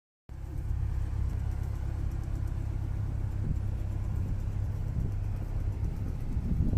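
Low, steady rumble of a large vehicle engine idling, starting abruptly a moment in.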